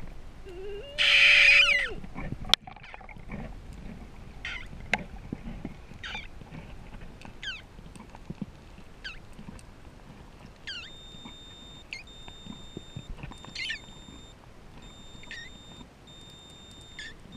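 Sounds heard underwater during a freedive. A loud rush of noise about a second in, then a single sharp click. After that comes a high chirp falling in pitch about every second and a half, and from about halfway through a high electronic beeping that starts and stops.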